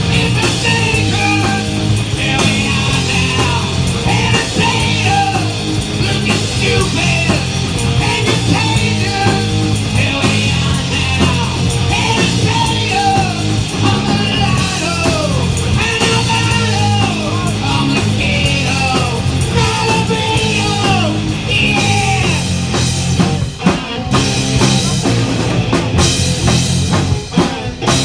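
Live rock band playing loud through a street PA: a Pearl drum kit, electric guitar, bass guitar and a Korg keyboard, with a sung lead vocal over them. Near the end the drums come through more sharply, with short breaks in the sound.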